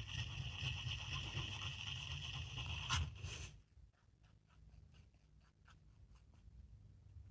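Two-part JB Weld epoxy being stirred with a mixing stick, scraping and scratching on the mixing surface. A steady, busier scraping stops abruptly about three and a half seconds in, and fainter, scattered scratches follow.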